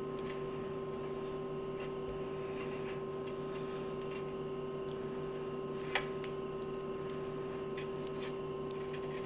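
Silicone basting brush dabbing and spreading a thick mayonnaise-and-sour-cream sauce over cooked corn cobs: faint soft squishing with small ticks, and one sharper click about six seconds in, over a steady hum.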